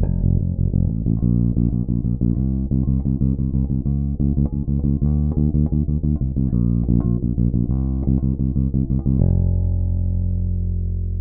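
Sago Seed Tabuchi Mk-II electric bass with a custom Tabuchi pickup, playing a fast run of short, evenly struck notes. About nine seconds in, one note is held and left ringing.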